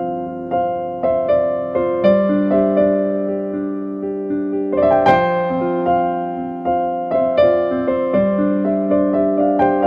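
Slow, sustained piano-style keyboard chords, with new notes struck about every second and left to ring. A firmer chord lands about halfway through.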